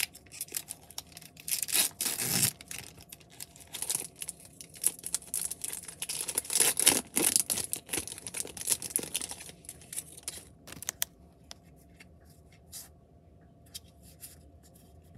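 Wrapper of a Pokémon card booster pack being torn open and crinkled: irregular bursts of tearing and crackling for about ten seconds, then only a few faint clicks and rustles.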